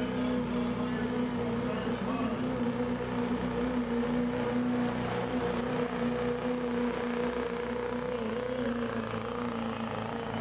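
Chevrolet Silverado HD turbo-diesel pickup engine held at full throttle under heavy load as it pulls a weight-transfer sled, running steadily at high revs with little change in pitch.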